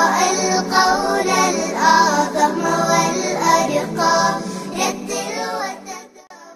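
Children's song: a child's voice singing over music, fading out near the end.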